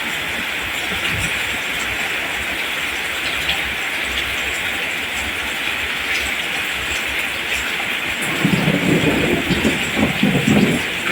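Steady heavy rain falling as an even hiss. Near the end it is joined for a couple of seconds by a louder, uneven low rumble.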